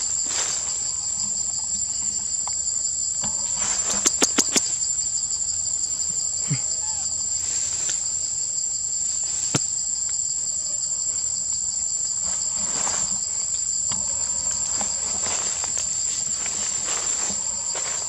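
Steady, high-pitched drone of forest insects, an unbroken two-toned whine. About four seconds in, a quick run of four sharp clicks stands out above it, with one more click later.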